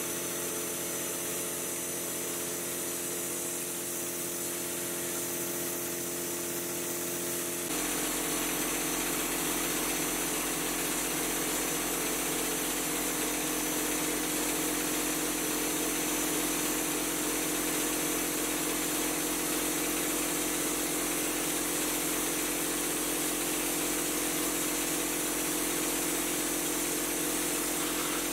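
Drywall texture spray rig running steadily, with the spray gun hissing as it sprays mud onto the wall for an orange peel finish. About eight seconds in, the sound steps up suddenly to a louder, deeper running with a fast low pulsing.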